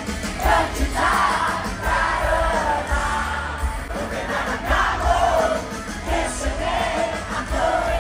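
Live rock concert: a band playing with heavy bass and a sung melody, and crowd voices mixed in.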